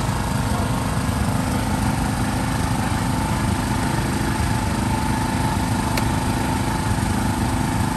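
Small engine running steadily, a constant low drone.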